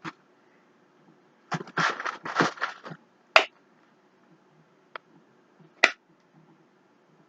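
Packaging being handled: about a second and a half of crinkling and crackling, then three separate sharp clicks or taps.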